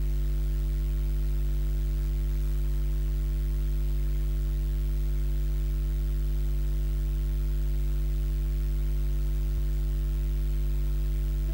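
Steady, unchanging electrical mains hum with a buzzy edge and faint hiss, with one tiny click near the end.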